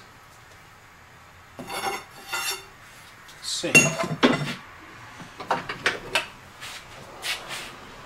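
Metal clattering and clinking on a workbench: a few light clinks, then the loudest clatter about four seconds in as a long metal bar is set down, followed by several sharper metallic clicks.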